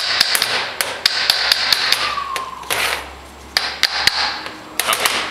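Small hammer tapping lightly on the case of a Denso 10S A/C compressor, in runs of quick strikes about six a second with short pauses between, knocking the centre case halves apart off their dowel pins.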